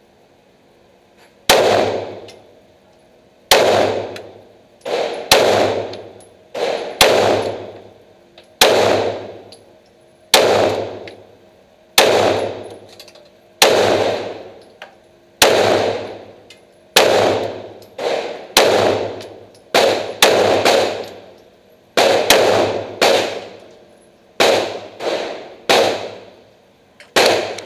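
Glock 17 9mm pistol firing about twenty single shots at a slow, uneven pace, roughly one every second or so. Each shot is followed by a long echo in an indoor shooting range.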